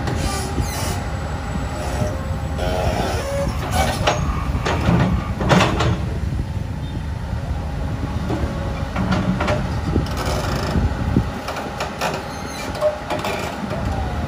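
Hyundai 220LC-9S tracked excavator running, its diesel engine droning steadily as it digs and swings through a pile of dolomite sand, with occasional knocks and scrapes from the bucket.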